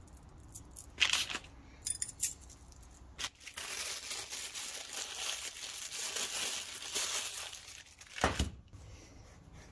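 Clear plastic bag crinkling and rustling as it is handled, lasting several seconds from about three seconds in. A few sharp clicks come before it, and a single knock comes near the end.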